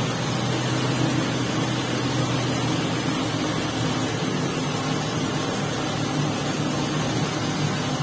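Praga RN truck engine running steadily, with an even low hum that does not rise or fall.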